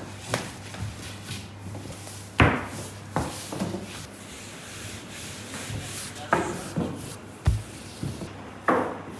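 A long wooden rolling pin rolls out a large, thin sheet of dough on an oilcloth-covered table: a dry rubbing and rustling, with about six knocks and thumps as the pin and dough come down on the table. A steady low hum runs beneath.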